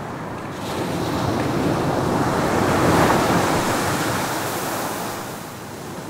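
Ocean surf on a sandy beach: a wave breaks and washes up the shore, its rush swelling to a peak about halfway through and then easing off.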